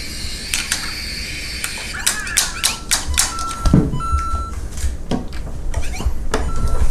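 LEGO Mario interactive figure and plastic LEGO pieces being handled: a run of sharp plastic clicks and taps, with several short electronic beeps at one steady pitch, two of them held for about half a second.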